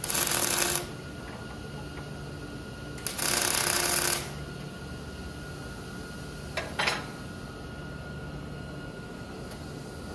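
Arc welder laying tack welds on steel plate: two loud bursts of welding noise about a second each, one at the start and one about three seconds in, then a brief third near seven seconds, over a steady background hum.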